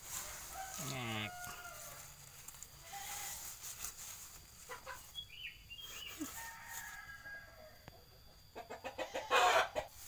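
A rooster crows about a second in, its call dropping steeply in pitch. A few faint high chirps follow around the middle, and near the end comes a loud run of rustling and knocks from a cardboard box and plastic sheet being handled.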